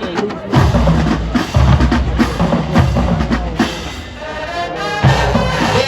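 Marching band drumline playing a cadence: heavy bass-drum hits at an uneven rhythm over snare drums.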